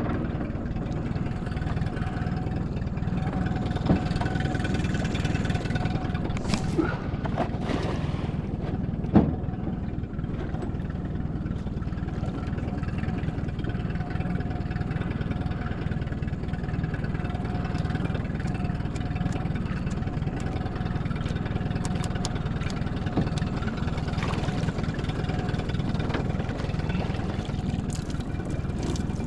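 Boat's outboard motor running at idle: a steady low hum with a faint held tone above it. A few short knocks sound between about four and nine seconds in.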